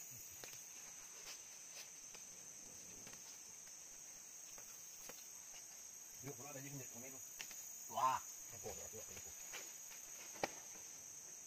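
Insects droning in a steady high-pitched trill. A few faint, low voices speak briefly in the middle, and there is a sharp click near the end.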